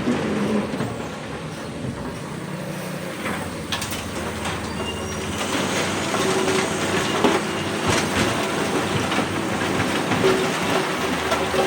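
Hydraulic excavator running steadily under load, with repeated knocks, clanks and scraping of the steel bucket working in rock.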